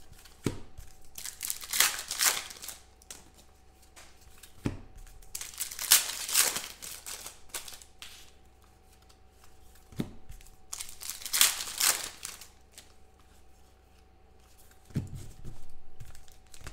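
Trading-card pack wrappers being torn open and crinkled by hand, in four bursts a few seconds apart, each preceded by a soft knock. A faint steady hum runs underneath.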